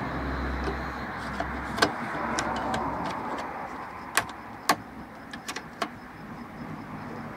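Several sharp clicks and taps from working a plastic strip at a car's fuel filler door, over a steady background rumble.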